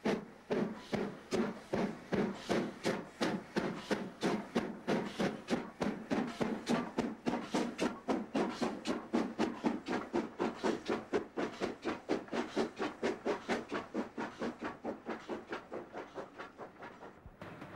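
WD Austerity 2-10-0 steam locomotive No. 3672 pulling away with a train: sharp exhaust beats from the chimney, quickening from about two to about four a second as it gathers speed and fading a little as it draws away. The sound cuts off just before the end, leaving a low hiss.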